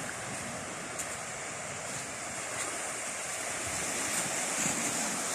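Ocean waves washing onto the shore, a steady surf hiss with some wind.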